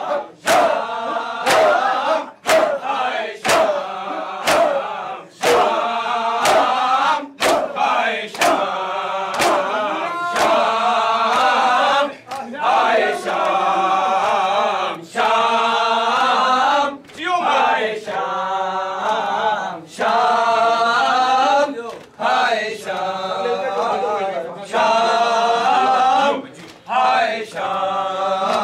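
A crowd of men chanting a noha, a Muharram lament, in unison, with sharp hand strikes on their chests (matam) keeping time. The strikes come quickly and regularly for about the first twelve seconds, then fall to single blows every couple of seconds under the singing.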